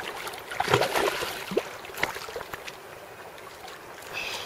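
Shallow seawater sloshing and splashing, with a few sharper splashes around a second or two in.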